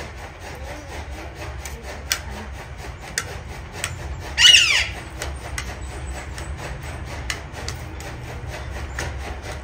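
A caged rose-ringed parakeet gives one short squawk about four and a half seconds in, while a metal spoon clicks now and then against a plate over a steady low rumble.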